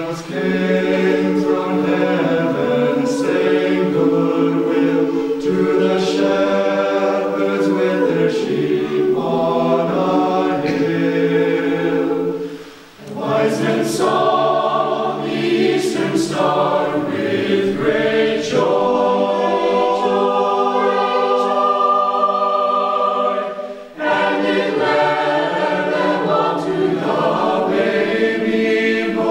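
Mixed choir of men's and women's voices singing a hymn unaccompanied in four-part harmony, holding sustained chords. The singing breaks off briefly between phrases about 13 seconds and 24 seconds in.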